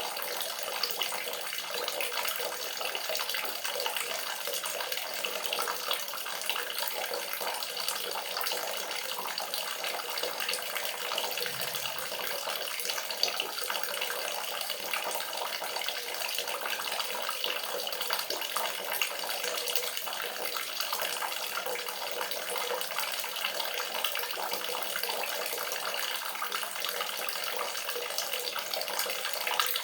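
Running water pouring steadily, a constant splashing rush with little low end.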